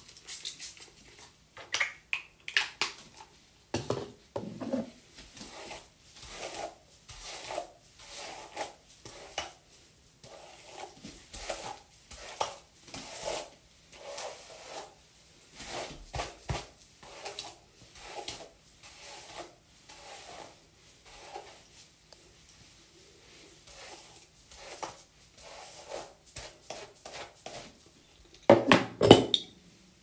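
Hair being brushed and styled, with irregular rubbing strokes and light clatter of a hairbrush and a plastic spray bottle being handled. A louder burst of clatter comes near the end.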